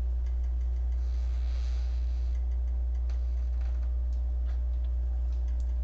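A steady low hum at an even level, with a few faint ticks over it.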